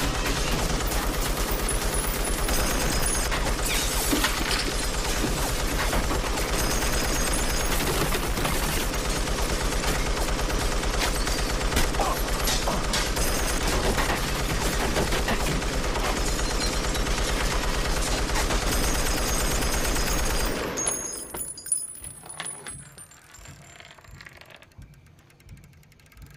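Long burst of automatic fire from a trunk-mounted machine gun, continuous and very rapid. About twenty seconds in the firing stops, leaving faint scattered mechanical clicks.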